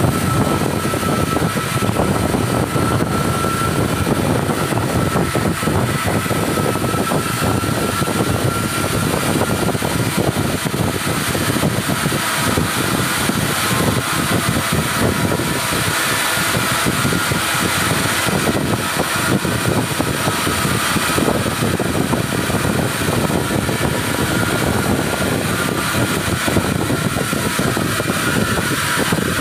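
CNC pipe profiling machine's cutting torch burning a profile cut into a rotating steel pipe: a steady, loud hiss with a faint thin high whine.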